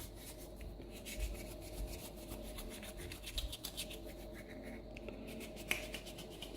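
Faint rubbing, scraping and light clicking of hands handling small parts, scattered irregularly throughout.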